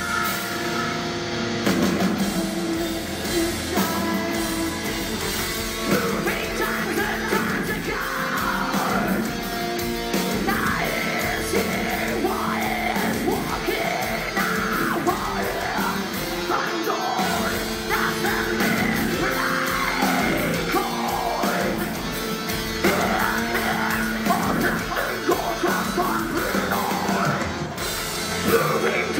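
A metal band playing live, with electric guitars, drums and vocals, heard from the crowd in the venue.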